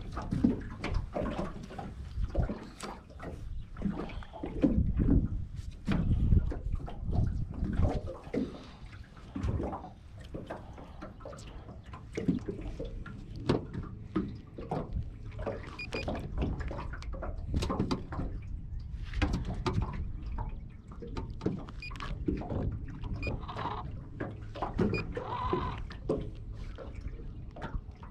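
Small waves lapping and slapping against a metal boat hull in an irregular run of knocks and splashes, with wind rumbling on the microphone.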